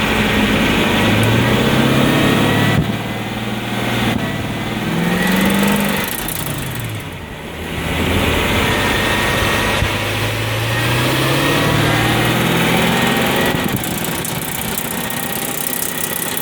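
2003 Mercedes-Benz E55's V8 and drivetrain pulling up in speed twice and easing off, with a rattle from the driveshaft area under the middle of the car that comes in above about 35 mph and sounds like something hitting the exhaust heat shields.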